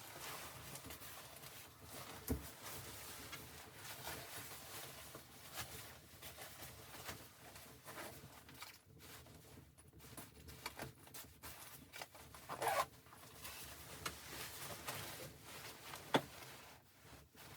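Close rustling and handling noises, like fabric or gear being moved about, with a dull knock about two seconds in, a louder scrape a little past halfway and a sharp click near the end.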